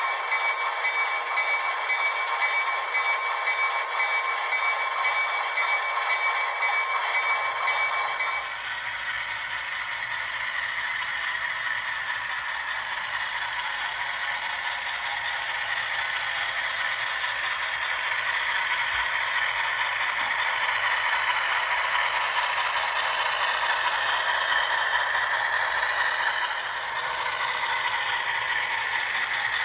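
HO scale diesel locomotive model running with its sound decoder playing diesel engine sound through its small speaker, over the clatter of its wheels and drive on the track. The sound changes about eight seconds in, with a low rumble joining.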